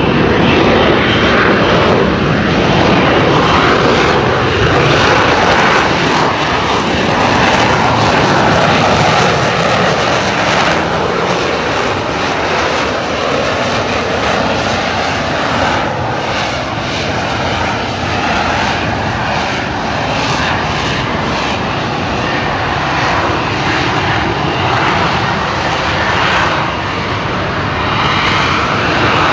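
Loud, steady jet noise from an F-35B Lightning II hovering in vertical-lift mode on its F135 engine and shaft-driven lift fan. The noise swells and eases slightly as the jet holds its hover.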